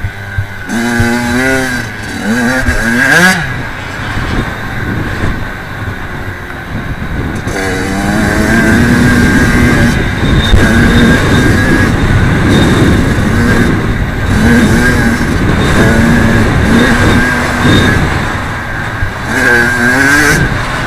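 Kawasaki KX85 two-stroke motocross engine revving hard, its pitch climbing steeply as the throttle is opened near the start, about eight seconds in and again near the end, and dropping off between as the throttle is rolled back.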